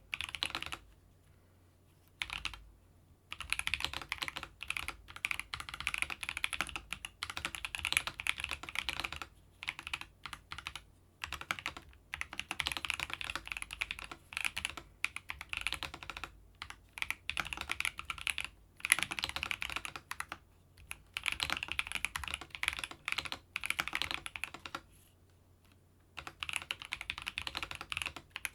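Keychron V3 Max mechanical keyboard with Banana switches being typed on, a fast run of key clicks in bursts separated by brief pauses.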